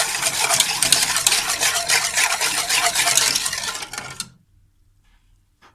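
A utensil stirring quickly in a saucepan, scraping and clicking against the pan as it mixes milk, sugar and pastry-cream powder. It stops suddenly about four seconds in.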